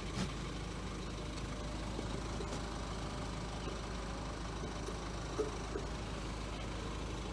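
Ford Transit Custom van's diesel engine idling, a steady low hum with a couple of faint clicks.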